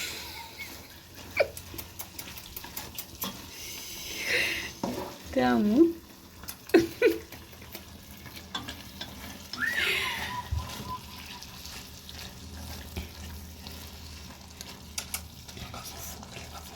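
Beef pepper steak sizzling in a pan as it is stirred, with scattered clicks of the utensil against the pan.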